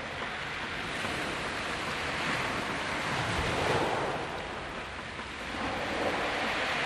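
Waves breaking on a beach: a rushing wash of surf that swells to its loudest a little past the middle, eases off, then builds again near the end.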